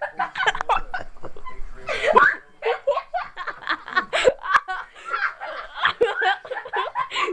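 People laughing and giggling in quick, choppy bursts.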